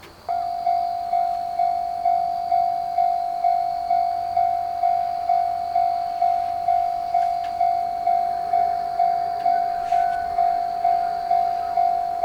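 Japanese level-crossing warning bell starting to ring about a third of a second in: a repeated electronic ding about twice a second, the signal that a train is approaching.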